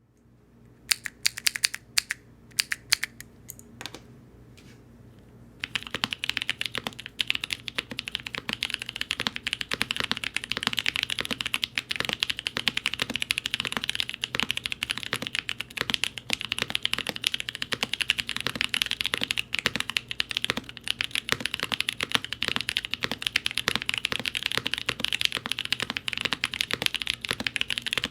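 Mode Eighty mechanical keyboard with NK Blueberry tactile switches and GMK keycaps being typed on: a few separate keystrokes at first, then steady fast typing from about five seconds in.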